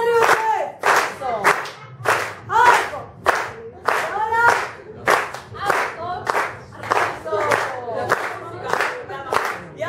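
Crowd clapping in time, about two claps a second, with voices singing and shouting along.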